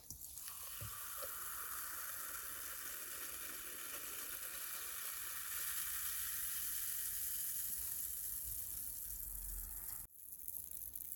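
Carbonated cola poured from a can into a glass tumbler and then fizzing, its bubbles making a steady crackling hiss. The sound cuts off about ten seconds in.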